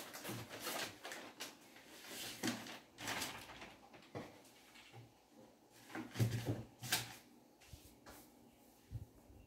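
Wardrobe drawers sliding open and shut and things being shifted about on its shelves, with rustling of folded bed linen: a run of irregular knocks and rustles, loudest about two thirds of the way through.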